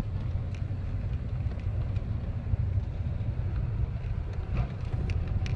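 A car being driven, heard from inside the cabin: a steady low rumble of engine and road noise, with a few faint clicks.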